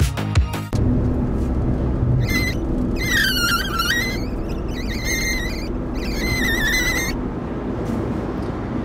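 Smart 453 cabin noise at Autobahn speed: steady road and engine noise. From about two seconds in there are four short stretches of a high, wavering whistle-like tone. This is not the windscreen whistle the owner is listening for, which he says did not show up.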